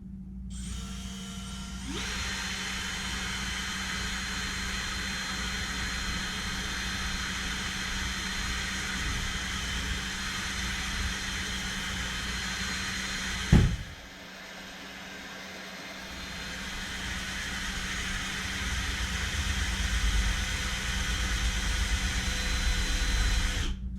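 Electric drill boring a hole through a steel chainsaw bar. The motor spins up within the first two seconds and runs steadily; there is a sharp knock about fourteen seconds in, after which the drilling grows louder until it stops just before the end.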